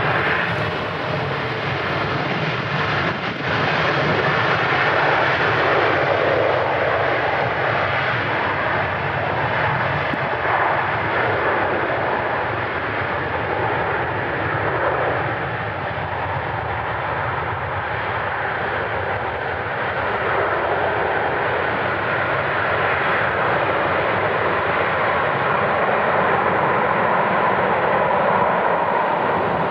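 Boeing 747-400 rolling out after landing on a wet runway: the steady, loud rush of its four jet engines, with a thin engine whine coming through in the second half.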